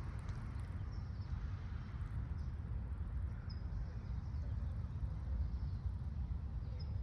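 Wind buffeting the microphone, a steady low rumble, with a few short high bird chirps scattered through it.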